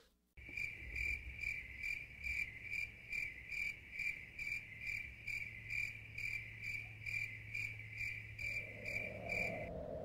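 Crickets chirping in a steady pulsed rhythm, about three chirps a second, starting right after a cut to silence and stopping abruptly near the end: the stock 'crickets' gag for an awkward silence.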